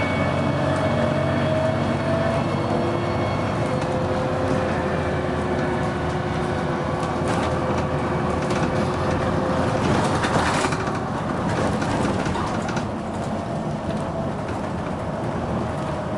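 Dennis Arrow double-decker bus's diesel engine running, with whining tones from the drivetrain and ZF automatic gearbox that drift slowly in pitch as the bus goes along. About ten seconds in there is a louder rush of noise.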